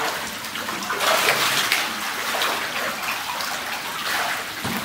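Water splashing and sloshing in a shallow concrete fish tank as a man wades and scoops Vietnamese koi (climbing perch) with a plastic sieve basket. The splashing is busiest about a second in.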